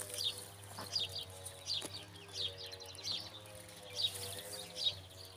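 A small bird chirping, short high calls repeated about once a second, over a faint steady hum.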